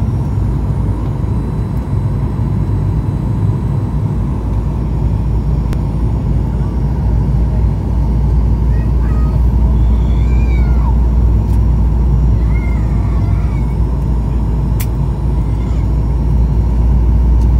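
Steady low rumble of an airliner's cabin on descent: the wing-mounted turbofan engines and the airflow along the fuselage, growing slightly louder about halfway through. A few short, high squeaks sound faintly over it in the middle.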